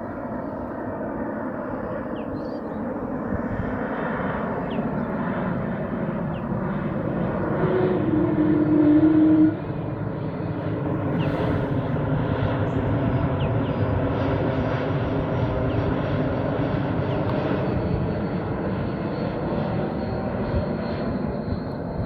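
Airliner on landing approach passing low overhead, its jet engine roar building over the first few seconds. It is loudest about eight to nine seconds in, with a strong drone that cuts off suddenly, and then a steady roar continues.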